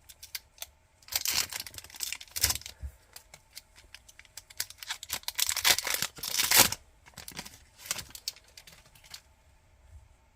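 Trading card pack wrapper being torn open and crinkled, with the cards handled and flicked. Dense rustling and tearing for the first seven seconds or so, then only a few faint clicks.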